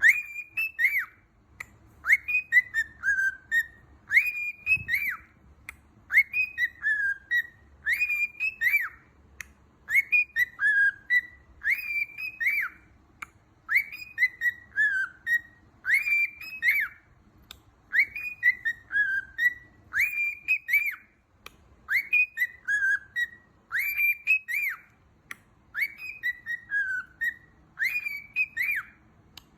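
A pet bird whistling the same short phrase of a few rising and falling notes over and over, about once every two seconds, with faint clicks between the phrases.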